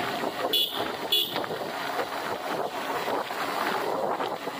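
Steady wind rush and road noise from a moving motorbike on a brick road, with two short high horn beeps about half a second apart around a second in.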